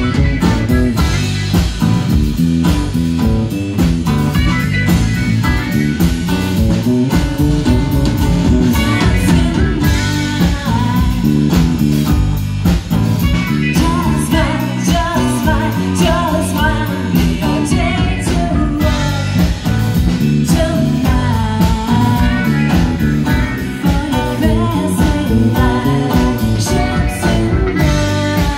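Live rock band playing with electric guitars, bass guitar and drum kit, a woman singing lead over them.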